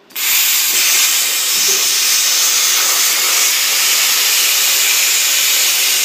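Air plasma cutter arc striking just after the start and cutting through steel: a loud, steady hiss from the torch that runs on without a break.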